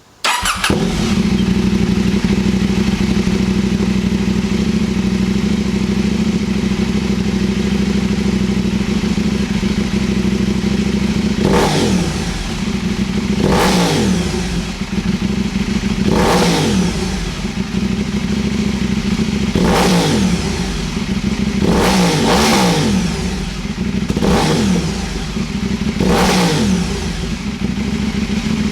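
KTM 790 Duke's parallel-twin engine, fitted with a Leo Vince LV10 dual slip-on exhaust, starting up and idling steadily. About halfway through, a run of about seven quick throttle blips follows, each revving up and dropping back to idle every two to three seconds.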